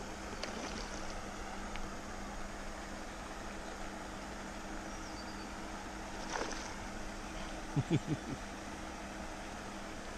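Hooked rainbow trout splashing once at the surface about six seconds in while being played on a fly rod, over a steady low hum and a haze of water and wind noise. Four quick low thumps, the loudest sounds, follow about eight seconds in.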